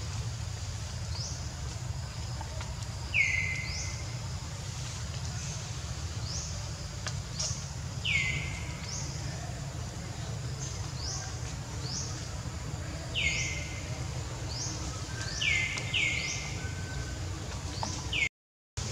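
Wild birds calling: a loud, clear whistle that slides downward, repeated every few seconds, over many fainter short high chirps, with a steady low rumble beneath. The sound cuts out briefly near the end.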